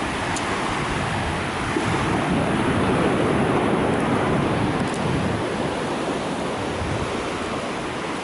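Ocean surf washing onto a beach, with wind on the microphone; the surf swells louder about two to five seconds in.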